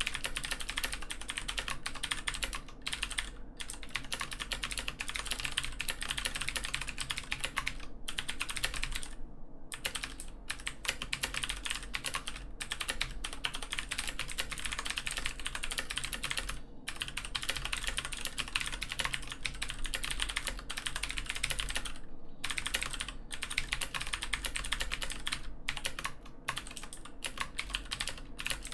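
Fast, continuous typing on a brand-new Filco Majestouch 2 full-size mechanical keyboard with Cherry MX Blue switches, crisp clicky keystrokes from fresh, unworn switches, with a couple of brief pauses.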